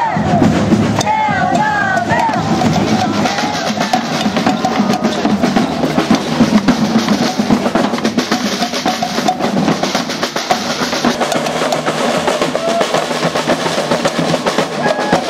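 A group of snare drums with a bass drum playing a fast, steady marching beat, with crowd voices chanting over it about a second in.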